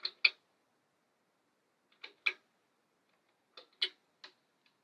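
Lamp switch clicking: three double clicks about a second and a half apart, then a single click, with near silence between.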